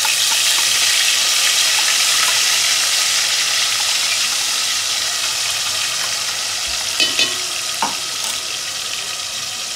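Wet green chilli, garlic and cumin paste sizzling in hot oil in an aluminium pot, the sizzle slowly dying down as the paste starts to fry. A few light clinks come about seven to eight seconds in.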